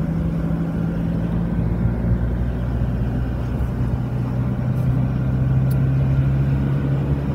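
Car engine and road noise heard from inside the cabin while driving slowly: a steady low drone whose pitch drops about two seconds in and climbs again near the end.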